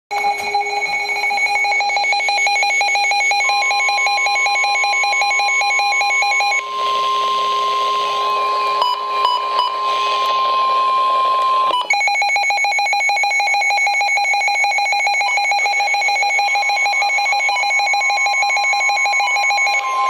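NOAA weather radios sounding a warning alert: a rapid electronic beeping alarm, joined a few seconds in by a steady single-pitch warning tone from the broadcast. The beeping breaks off for about five seconds in the middle, leaving the steady tone over hiss, then starts again.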